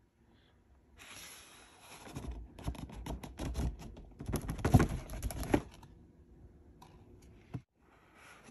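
Cardboard perfume boxes being handled and opened: rustling and scraping with many quick taps and clicks. It starts about a second in, is loudest near the middle and fades to a few faint ticks after about five and a half seconds.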